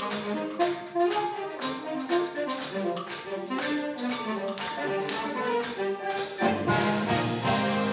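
Big band playing live: brass and saxophone section lines over a steady percussion beat, about two and a half strokes a second. About six and a half seconds in the full ensemble comes in with a fuller, thicker sound.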